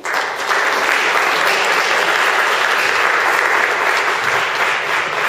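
Audience applauding. The clapping breaks out suddenly and stays loud and steady, easing off near the end.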